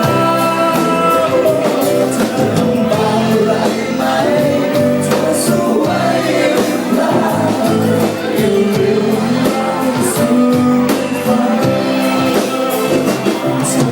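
Thai-language song playing: full band music with singing and a regular beat.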